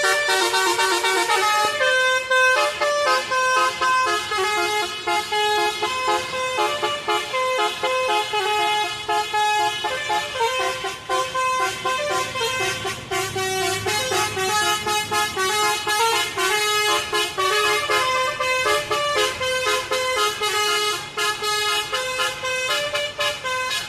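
Tour bus's basuri musical horn playing a tune: loud horn notes stepping quickly from pitch to pitch, with a steady beat under them.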